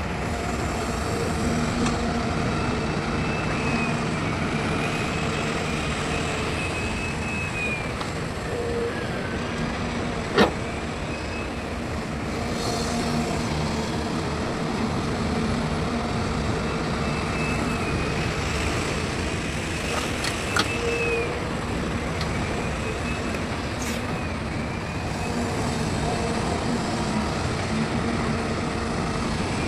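Excavator working: a steady diesel engine and hydraulic noise with a whine that rises and falls over and over, and two sharp clanks, about ten and twenty seconds in.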